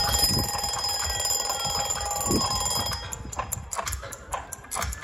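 A slow siren wail sliding up and down, with a held high ringing tone that cuts off about three seconds in and scattered sharp percussion hits.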